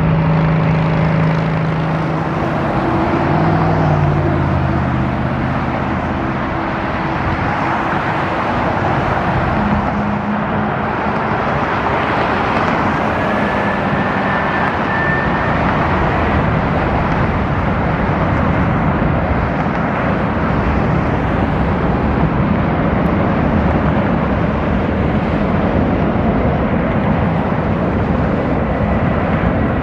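A McDonnell Douglas MD-11 freighter's three jet engines running as it taxis: a steady jet roar, with a faint rising whine partway through.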